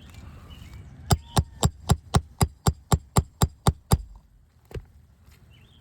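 Roofing hammer striking a nail puller about a dozen times in quick, even succession, about four blows a second, driving it under a shingle to pull a roofing nail, followed by one more single blow.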